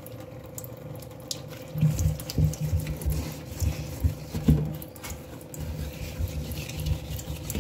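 A lemon half being scrubbed by hand over a wet stainless steel sink, making irregular rubbing thuds and small clicks against the steel, over a faint steady hum.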